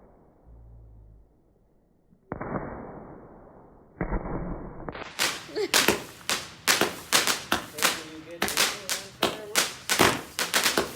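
Multi-shot consumer firework cake (96-shot 'Color of Pearl') firing: two separate bangs with a lull between them, then from about halfway a rapid string of sharp shots, roughly three a second.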